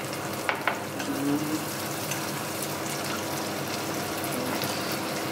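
Chopped onion sizzling steadily in butter and ajvar in a frying pan, with two light clicks of a spoon on a small glass bowl about half a second in.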